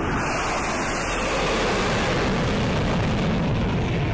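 Jet airplane flying past, a rushing roar that swells in over the first second, then loses its hiss and settles into a deeper rumble.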